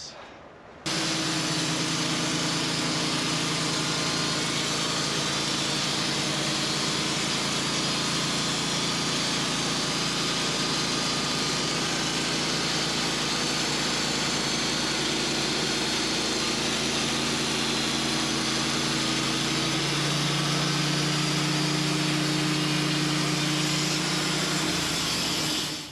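Sawmill running steadily under load as its blade makes the last cut through a hickory log, a steady engine hum with a hiss of sawing. The engine note shifts a little about 20 seconds in. The sound starts abruptly about a second in and stops abruptly near the end.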